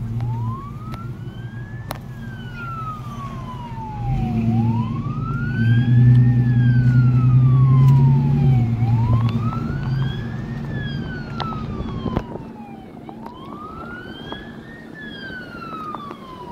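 Emergency vehicle siren on a wail setting, its pitch rising quickly and falling more slowly about every four seconds. Beneath it, a vehicle engine's low hum is loudest through the middle and drops off about twelve seconds in.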